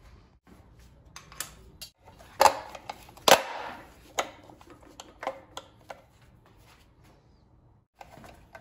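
Scattered clicks and knocks of parts being handled on an electric scooter's metal frame and battery compartment, with two louder knocks about two and a half and three and a half seconds in.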